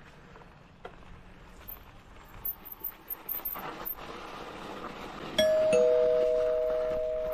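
A bell struck twice in quick succession about five seconds in, giving two steady ringing tones, one a little lower than the other, that fade slowly. Before it there are faint rustling and scattered small clicks.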